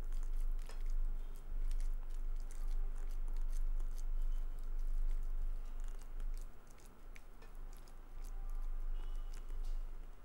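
Close, wet chewing of spaghetti, with short clicks and scrapes of a fork against the plate, over a steady low hum.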